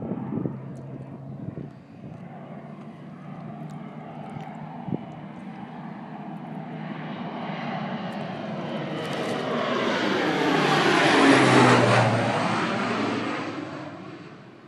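Air Tractor agricultural crop-dusting plane making a low flyover: its engine and propeller sound grows steadily louder as it approaches, peaks about eleven seconds in as it passes overhead, then fades quickly as it flies away.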